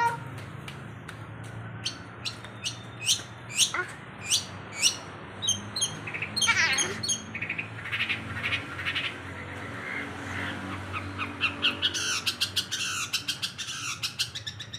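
A small songbird calling: sharp, high notes repeated about twice a second, then a few falling sweeps, breaking into a fast run of notes near the end.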